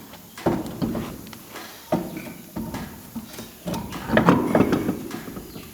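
A series of separate knocks and clunks, with a denser clatter about four seconds in.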